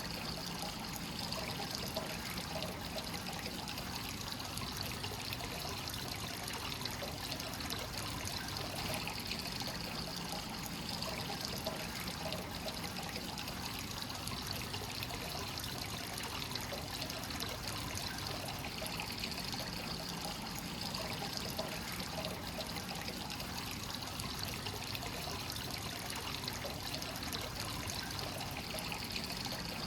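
Hot spring water flowing continuously from the source into a rock bath, a steady pouring and trickling without break.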